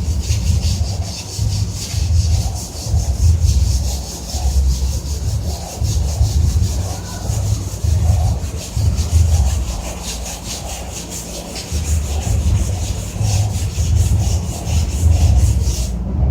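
Quick, repeated scrubbing strokes on a water heater's casing, a few a second, over a loud, uneven low rumble. The strokes stop just before the end.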